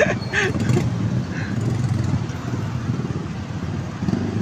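Motorcycle engines running at low revs, with traffic noise mixed in: a steady low rumble.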